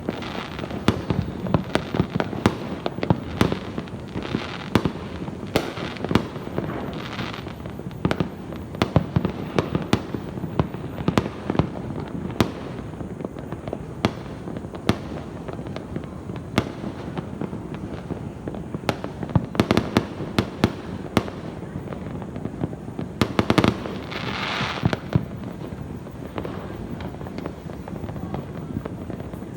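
Fireworks going off continuously: many sharp bangs and pops at irregular intervals over a steady rumble of more distant fireworks, with a denser run of bangs and a hiss about three quarters of the way through.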